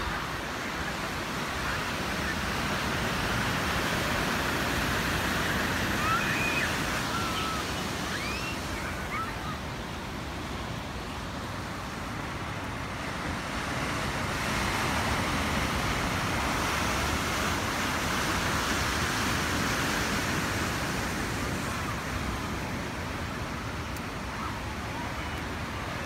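Ocean surf breaking over rocks below a sea cliff: a continuous rushing wash that swells twice as waves crash and then eases as the water runs back.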